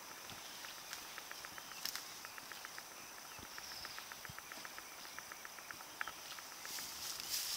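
Insects calling: a steady high buzz, with a rapid run of even ticking chirps at about ten a second through the middle. A brief rustle comes near the end.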